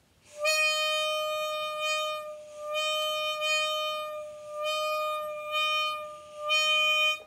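Toy saxophone blown on one steady, buzzy note, in four long blows that swell and fade, the pitch never changing.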